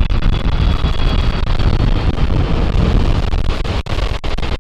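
Boeing 747-400 freighter's four jet engines at takeoff power, a loud, steady, deep rumble. A faint high whine fades out in the first second and a half.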